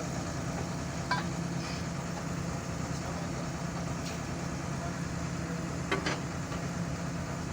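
Excavator diesel engine running steadily at a low, even pitch, with two short metallic clinks, one about a second in and one near six seconds.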